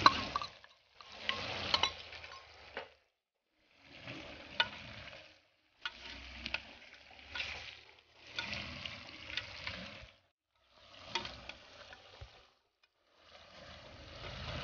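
Pork pieces frying dry in an aluminium pot, sizzling as a metal spoon stirs and scrapes them, with small clinks against the pot. The sound comes in stretches of a second or two broken by brief silences.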